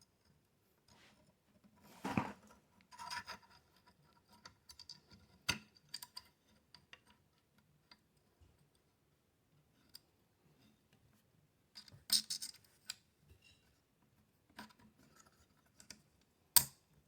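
Small steel rifle parts clicking and scraping as an AR-15 hammer and its spring are worked into the lower receiver, with scattered light handling noise and a few sharp clicks, the loudest near the end.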